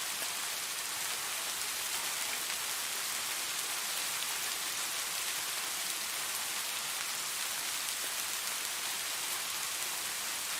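Steady rain falling: a dense, even hiss of many drops, with faint individual drop ticks, unchanging throughout.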